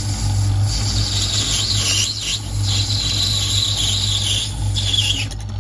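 Metal lathe running while a parting tool cuts through a spinning brass bar: a high, wavering squeal from the cut over the steady hum of the lathe motor. The squeal stops near the end.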